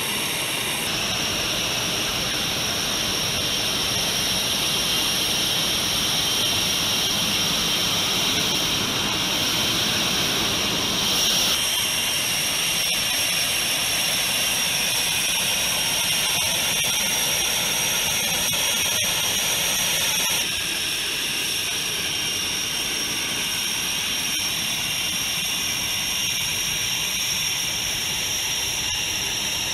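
Panavia Tornado's Rolls-Royce RB199 turbofan engines running on the ground, a steady jet rush with a high-pitched whine. The tone and level shift abruptly three times, about a second in, near the middle and about two-thirds through.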